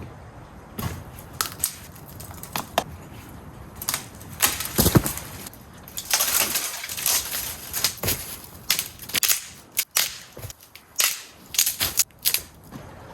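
Dry sticks and branches cracking and snapping as firewood is gathered, in irregular sharp cracks with a denser run of crunching and rustling in the middle.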